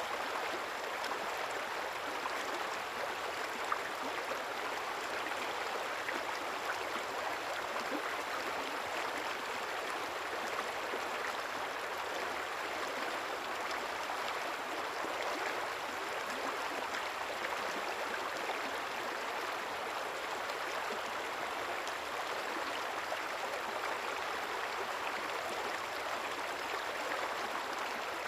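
A river running steadily, a continuous rush of flowing water with small splashes and gurgles.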